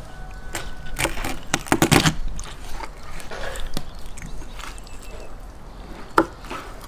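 Chef's knife cutting a raw chicken apart on a wooden cutting board: irregular crunches and cracks as the blade goes through the joints, with knocks of the blade on the board. A loud cluster comes between one and two seconds in, and a single sharp knock a little after six seconds.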